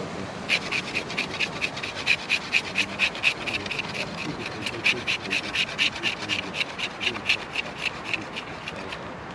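Knife blade shaving a green wooden stick in quick, short scraping strokes, about four or five a second, starting about half a second in and stopping near the end.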